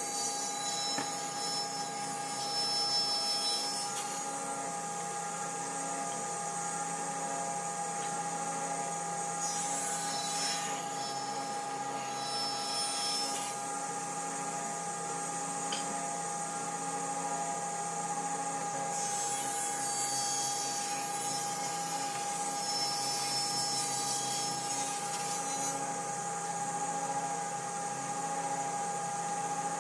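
A woodworking power tool runs steadily, cutting into wood in three stretches: at the start, about ten seconds in, and from about nineteen to twenty-six seconds in.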